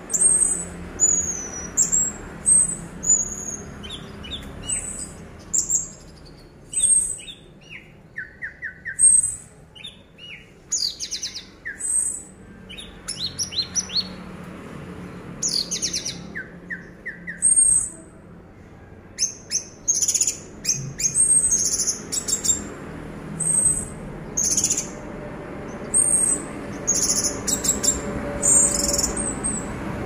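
Caged orange-headed thrush singing a long, varied run of high-pitched phrases, one every second or so, with some lower warbled notes mixed in during the first half. This is the sustained, trance-like full song that keepers call 'teler'.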